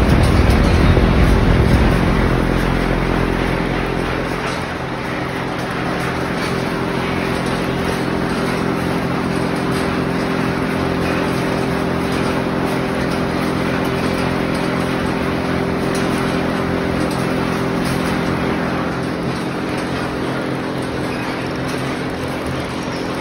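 Rotating drum of a paint drying line running, with chips tumbling inside and pouring out of its end: a steady machine hum with several steady tones over a rushing noise. A heavier low rumble at the start eases off about four seconds in.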